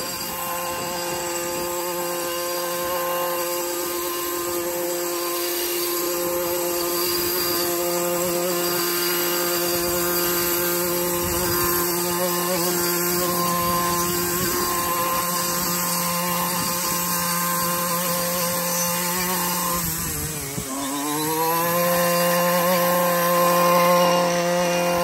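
Husqvarna 128R brushcutter's small two-stroke engine running at high, steady speed while mowing through horseradish. About twenty seconds in its pitch drops sharply as the engine bogs under load, then climbs back to speed within about a second.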